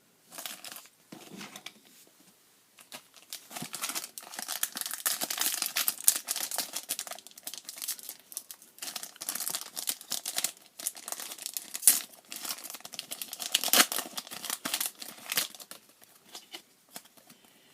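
Foil booster-pack wrapper of Pokémon trading cards being crinkled and torn open by hand: a dense run of crackling with a few sharper, louder rips.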